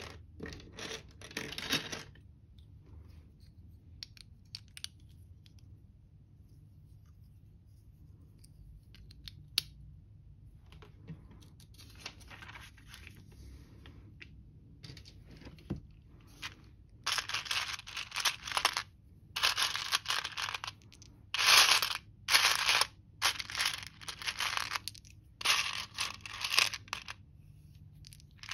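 Loose plastic LEGO pieces clattering as fingers rummage through them in a tray, in repeated loud bursts over the second half. Before that only a few light clicks of pieces being handled.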